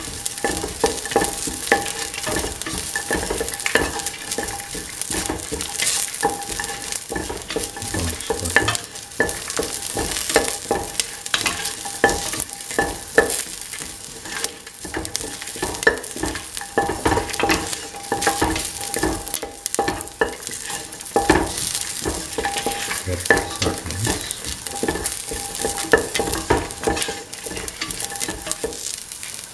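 Chopped shallots and dried red chilies sizzling in hot oil in a stainless steel pan while being stirred. A utensil scrapes and clicks against the metal throughout.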